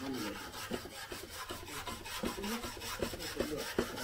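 Wire brush scrubbing the worn, paint-stripper-coated wooden top of an old step ladder chair in quick back-and-forth strokes, a dry scratchy rasp of bristles on wood as the softened paint is worked off.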